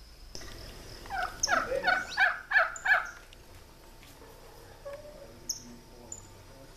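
A bird calling: a rapid run of about six pitched notes over about two seconds, starting about a second in, followed by a few short high chirps.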